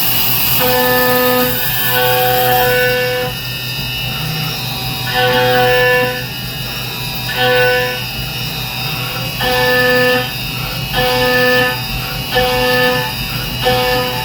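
CNC mill's end mill cutting billet aluminium, singing at one fixed pitch in short cuts of about a second each that start and stop repeatedly, over the steady whine of the spindle.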